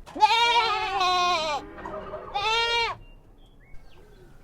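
Goat bleating twice: a long wavering call, then a shorter one about two seconds later.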